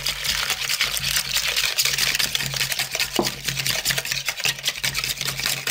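Wire balloon whisk beating milk into eggs and sugar in a plastic bowl: a fast, steady run of clicking and scraping.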